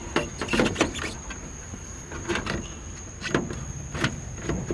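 Hands handling the car's trunk lid and latch parts, giving a series of short separate clicks and knocks, about six over a few seconds.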